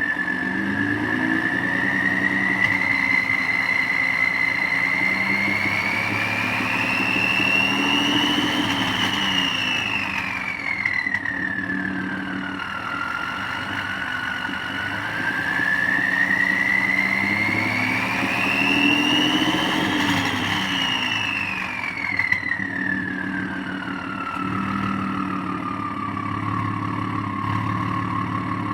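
Ford F-150's 3.5L EcoBoost twin-turbo V6, with catless downpipe, resonator delete and Corsa muffler, giving a loud turbo whistle over the engine note. The whistle rises and falls twice with the revs, peaking about a third of the way in and again about two thirds in, then settles to a lower steady whistle before cutting off.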